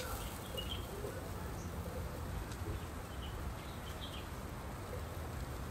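Outdoor ambience: a steady low rumble with a few faint, short bird-like chirps scattered through it.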